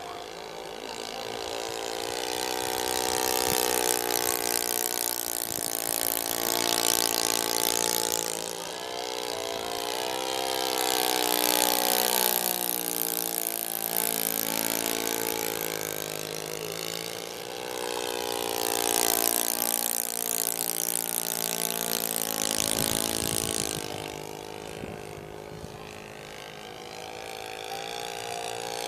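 Engine of a giant-scale radio-controlled model airplane buzzing as the plane flies passes, growing louder and fading away several times, its pitch bending up and down as it comes and goes.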